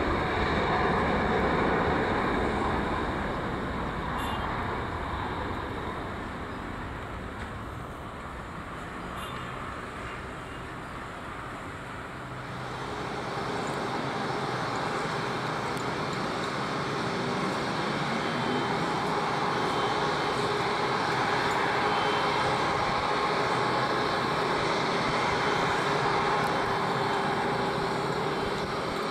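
Boeing 777-300ER's GE90 engines at takeoff thrust, the jet noise fading as the airliner rolls away down the runway. About twelve seconds in this gives way to an Airbus A330-300 with Rolls-Royce Trent 700 engines taxiing, a steady jet-engine whine and hum that grows louder as it comes closer.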